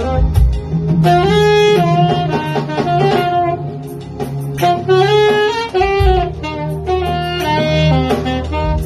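Saxophone playing a slow melody in phrases that glide between notes, over a steady low accompaniment, with a few low thumps.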